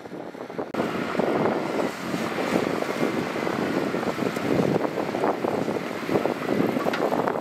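Wind buffeting the microphone, with heavy-equipment engine noise running beneath it. The sound steps up suddenly less than a second in.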